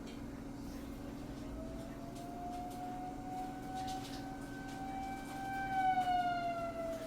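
Tornado warning siren sounding one long wail that rises in pitch, holds, then falls away near the end, loudest just before it falls. A steady low hum runs underneath.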